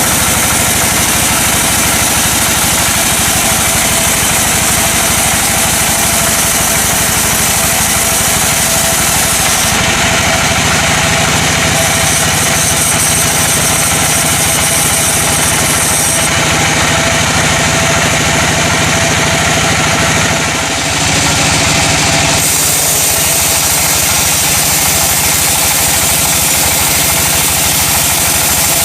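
Sawmill machinery running loud and steady, a continuous engine-like drone. Its sound changes abruptly about ten, sixteen and twenty-two seconds in, with a brief drop in level just before the last change.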